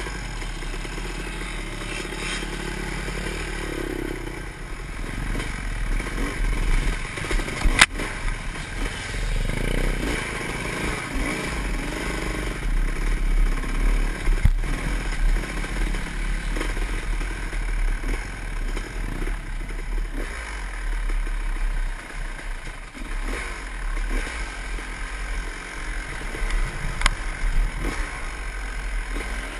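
Dirt bike engine running and revving up and down while riding a rough trail, with clattering and scraping, and a couple of sharp knocks.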